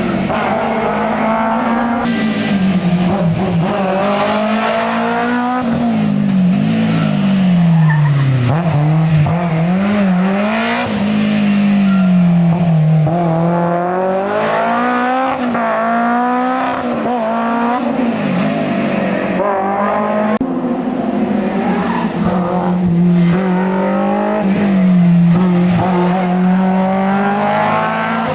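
Historic rally car engine at full racing effort, the revs repeatedly climbing and dropping through gear changes and corners.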